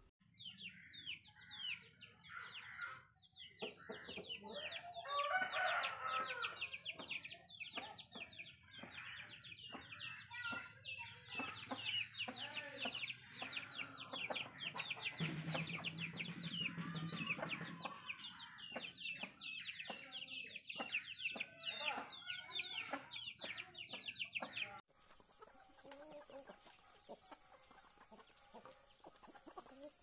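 Aseel chickens clucking, with a chick's rapid, high peeping running through most of it; the peeping stops abruptly near the end, leaving a quieter stretch.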